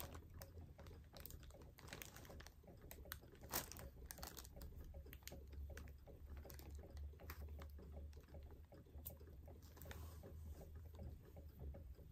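Faint crinkling and small ticking clicks of plastic packaging and cardboard as soft toys are handled and unpacked from a box, over a low steady hum.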